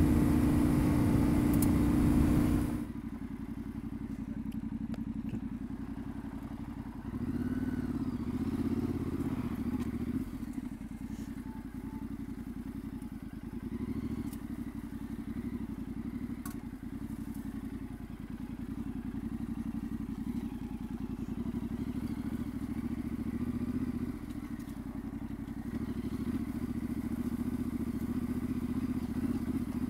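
Yamaha Ténéré 700's parallel-twin engine running on a dirt road, louder for the first few seconds and then settling to a lower, steady pull with small rises in pitch, with a few faint knocks.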